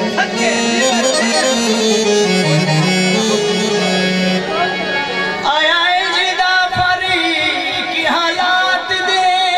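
Harmonium playing a melody over a sustained drone; a little past halfway a man's voice comes in, singing a Saraiki folk song over it.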